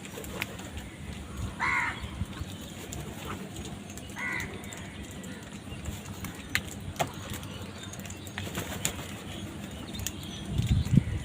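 Crow giving two short caws a couple of seconds apart, among scattered clicks and light scuffling, with low thumps near the end.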